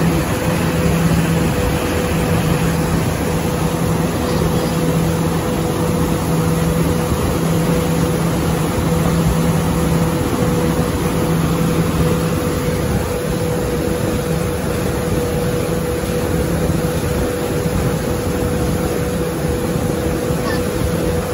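A wake-surf boat's inboard engine running steadily under way, holding an even hum, over the constant rush of the churning wake behind the boat.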